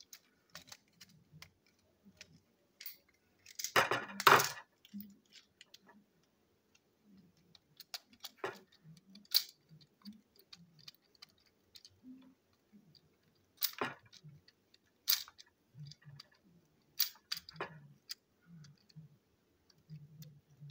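Small sharp clicks and knocks of a metal screwdriver and fingers handling a plastic toy train chassis, with a louder clatter about four seconds in and single clicks scattered through the rest.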